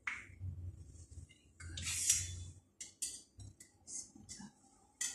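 A stuck cap on a sauce bottle being twisted and worked at by hand: a run of short irregular scrapes and clicks, the longest and loudest about two seconds in.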